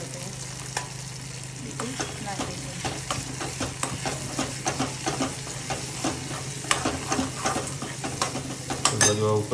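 Steel ladle stirring and scraping a tomato-onion masala in a stainless steel kadai, repeated scrapes and taps a few times a second over a frying sizzle. A louder burst comes near the end.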